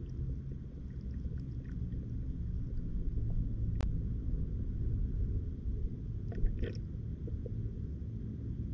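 Muffled underwater rumble of ditch water heard through an underwater camera's housing, with a sharp tick about four seconds in and a short cluster of clicks about six and a half seconds in.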